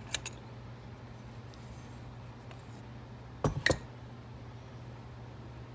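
Small metallic clinks of a dimple lock cylinder and its picking tools being handled: two light clicks right at the start, then a louder cluster of clinks about three and a half seconds in, over a faint steady hum.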